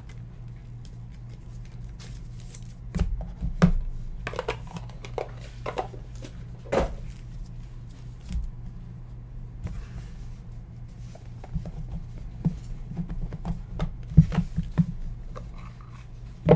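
Trading cards and a small cardboard pack box being handled: scattered soft clicks, taps and rustles of card stock, a few sharper ones, over a steady low electrical hum.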